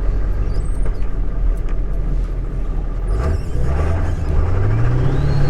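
Ford 7.3L Power Stroke turbo-diesel V8 running, then pulling harder from about three seconds in, its pitch climbing. A high turbo whistle rises over it and then holds steady near the end.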